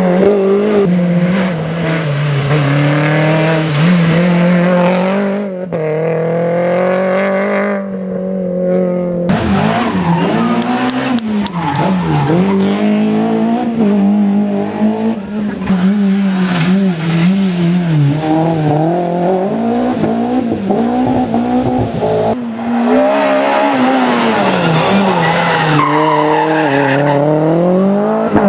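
Renault Clio Williams rally cars' four-cylinder engines revving hard at full throttle, the pitch climbing and dropping again and again through the gears. Several passes follow one another with sudden changes where the clips are cut together.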